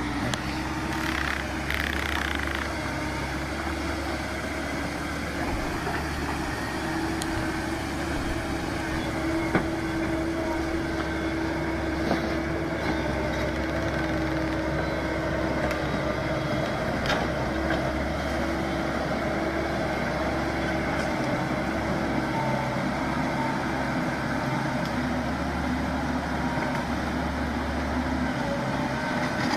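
Excavator's diesel engine running steadily, with a few short knocks.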